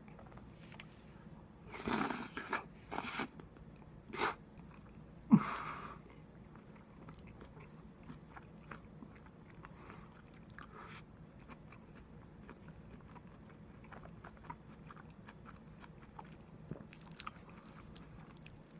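A person eating curry with cashews and cauliflower: a handful of louder short noises between about two and six seconds in, then only soft, faint chewing sounds.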